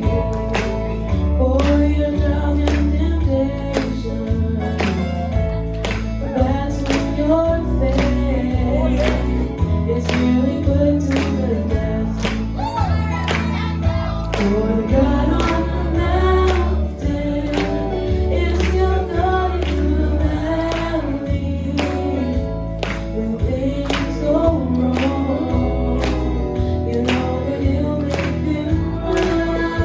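Gospel group singing with female and harmony voices over a band with bass and a steady drum beat.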